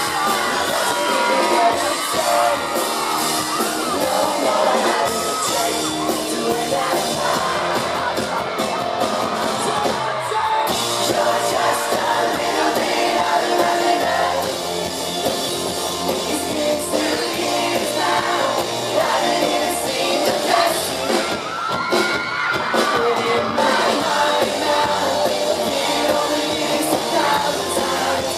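Live pop-rock band performance heard from the audience, singing over guitars and drums, with fans yelling and whooping along.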